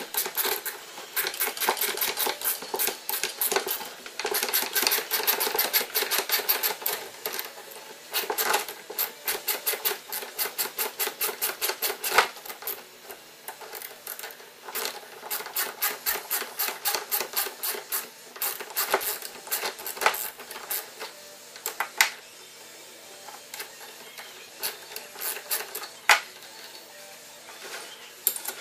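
Rapid runs of small metallic clicks and clinks from wrenches working the bolts out of an MCP brake caliper, dense for about the first twelve seconds, then sparser with a few sharper single clinks.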